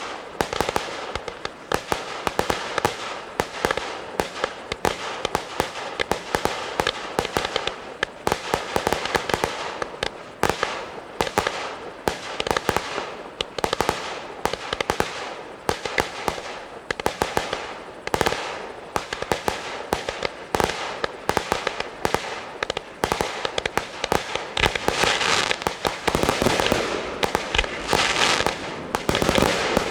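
Fireworks display: a continual run of shell bursts and bangs with dense crackling in between, growing thicker and busier in the last few seconds.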